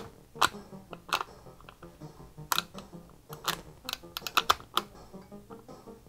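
Sharp, irregular clicks of an Epyx 500XJ joystick's microswitches as the stick is worked and the fire button pressed, a quick cluster of them about four and a half seconds in. Faint Commodore 64 game music plays underneath.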